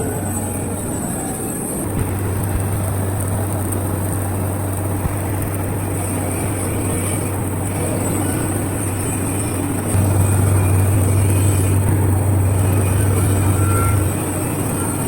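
Light pole seam-welding machine running: a steady electrical hum under continuous machine noise, louder for about four seconds near the end.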